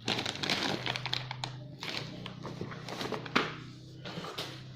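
Packaging being handled and opened: crackling, rustling and scattered taps, with one sharp click a little over three seconds in, over a steady low hum.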